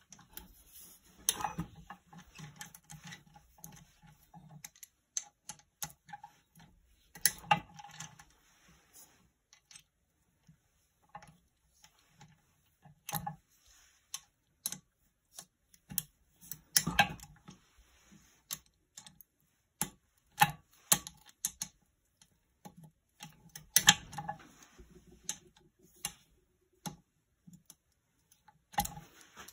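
Ratcheting wrench clicking in short bursts as it turns bolts on a small generator's alternator housing, with scattered metal clinks and knocks of tool on casing.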